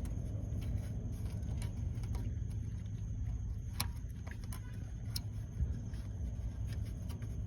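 Scattered light metallic clicks and taps, about ten at irregular intervals, of a starter bolt and parts being worked by hand, over a steady low rumble.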